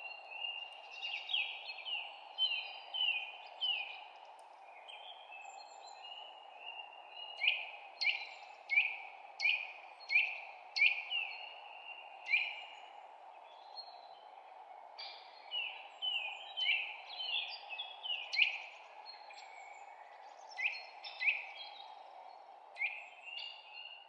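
Songbirds in a spring forest chirping: runs of short, sharp chirps that drop in pitch, with brief lulls between runs, over a steady background rush.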